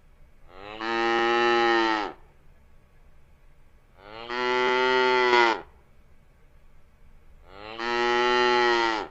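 A cow mooing three times, each moo a long, even call of about a second and a half, a few seconds apart.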